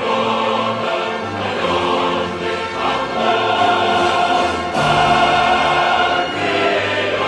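Choral music: a choir singing sustained chords over an orchestral backing.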